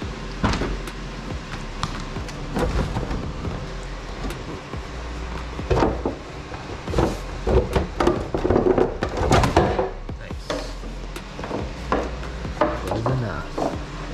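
Clicks, knocks and scraping as a car's side skirt is worked loose and pulled off the body, thickest about six to ten seconds in, over steady background music.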